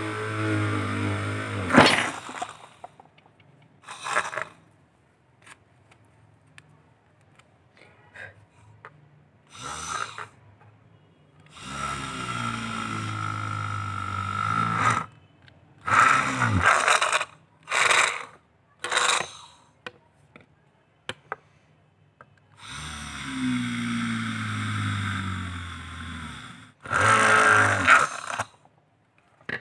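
Homemade 12 V DC-motor drill whirring in about eight short bursts as it bores holes in wood and a thin plastic sheet. Its whine starts at each press of the push button and falls in pitch as the motor winds down, with quiet gaps and small clicks between runs.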